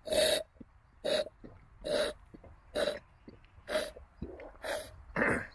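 A person repeatedly snorting liquid up the nose from a small glass jar: seven short, hard sniffs, about one a second.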